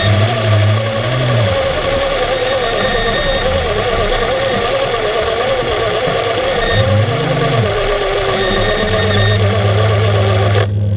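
Steady machinery hum heard underwater, with a wavering whine throughout. A deeper hum swells and falls near the start and again about seven seconds in, then holds steady from about nine seconds on.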